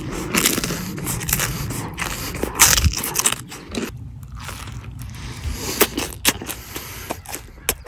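A person biting and chewing mouthfuls of a ketchup-covered corn dog, with wet mouth sounds and a string of short sharp clicks. The bites are denser in the first half and sparser later on.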